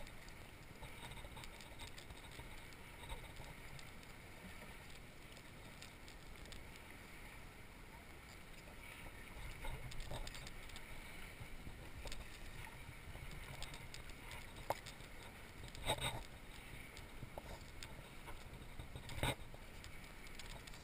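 Small waves lapping and sloshing at the waterline, a steady low wash of water, with a few short sharper splashes, the loudest two near the end.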